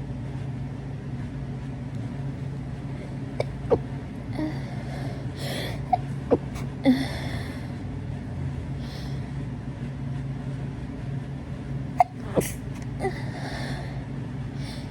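A person sneezing several times in clusters: sharp sneezes about four seconds in, again around six to seven seconds, and near twelve seconds, with breathy sniffs and exhales between them, over a steady low hum.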